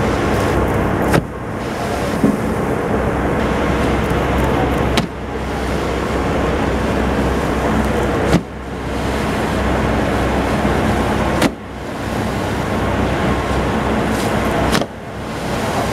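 Humpback whale tail slapping: its flukes smack down on the water five times, about every three and a half seconds, each a sharp crack over a steady engine-like noise with wind.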